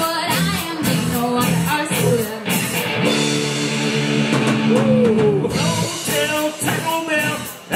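Live rock band playing through a PA: a woman singing over two electric guitars and a drum kit. Around the middle the drum beat drops out for a couple of seconds under a held guitar chord, then comes back near the end.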